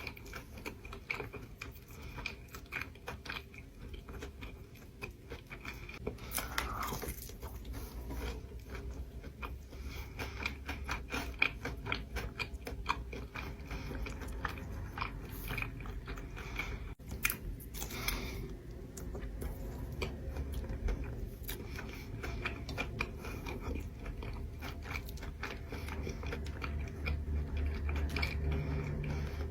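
Close-miked eating: repeated biting and chewing with crunchy, crackly mouth sounds, in an irregular stream of small clicks.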